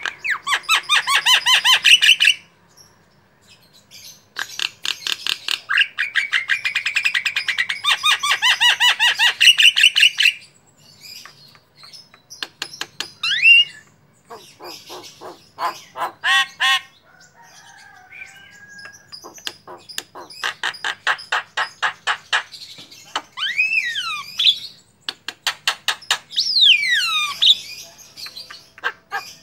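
Javan myna singing a long, varied song: several bursts of fast repeated chattering notes broken by short pauses, with whistled notes sliding up and down near the end.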